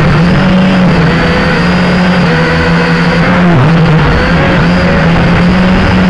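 Syma X5C quadcopter's small brushed motors and propellers buzzing loudly, heard through its onboard camera. The pitch wavers up and down and dips briefly a few times.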